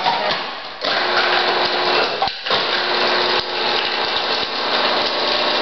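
Electric food processor running, its blade chopping garlic cloves. The motor starts about a second in with a steady whirr and hum, stops briefly a little past two seconds, then runs on.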